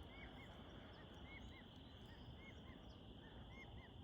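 Very faint dusk ambience of insects: a steady high hum with soft paired chirps about once a second.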